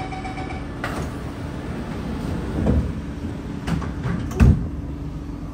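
Sliding passenger doors of a Kawasaki C751B metro train closing. A steady door-closing warning tone stops just after the start, followed by knocks and a loud thud about four and a half seconds in as the doors shut, over a steady hum from the train.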